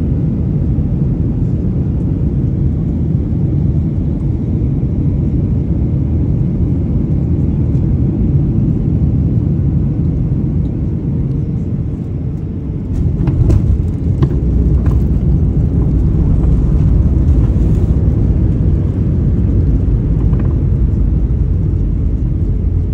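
Cabin noise of a Boeing 737 on final approach: a steady low rumble of engines and airflow. About 13 seconds in the wheels touch down with a few knocks and rattles, and the rumble grows louder as the jet rolls out on the runway with its spoilers up.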